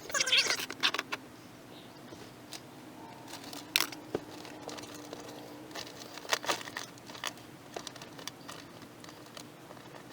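Scrap wire being handled and worked through a handheld copper wire stripper: crinkling and rattling in the first second, then scattered sharp clicks and taps.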